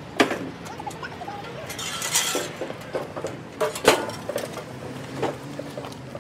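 Sharp metal clinks and knocks from a crew handling a heavy commercial floor mixer on a dolly, with a brief scraping hiss about two seconds in and the loudest knock near the four-second mark.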